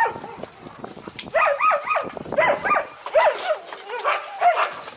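Several young sled dogs yelping and barking excitedly, short rising-and-falling yelps several times a second and overlapping, as they are harnessed into a team for a pulling run.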